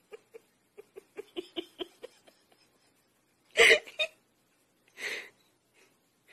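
A dog grunting in a quick run of short, snuffly pulses, about five a second, while it noses and burrows into a soft bed. About three and a half seconds in comes a loud, sharp burst, then a softer breathy one about five seconds in.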